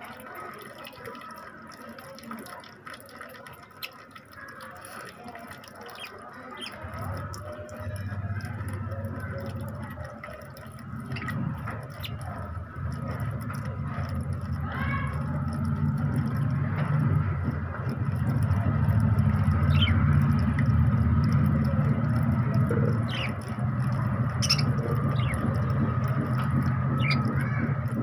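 Water dribbling from a garden hose into a budgerigar cage's bath dish, with budgerigars chirping now and then. From about seven seconds in, a low rumble builds up and becomes the loudest sound.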